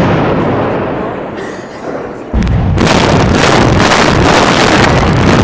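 Explosive demolition of a high-rise block of flats: a sharp, loud blast from the charges that fades, then, a little over two seconds in, a second loud spell of crackling blasts and rumble lasting about three seconds as the block comes down.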